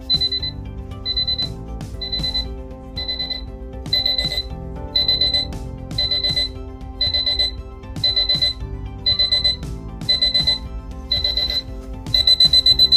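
Uscce digital LED alarm clock's alarm beeping in short clusters of rapid high beeps, about one cluster a second, growing louder. Near the end it switches to continuous rapid beeping, beeping out of control.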